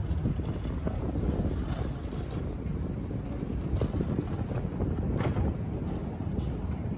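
Vienna ULF low-floor tram rumbling slowly past as it rounds a curve in the track, with a couple of brief clatters about four and five seconds in.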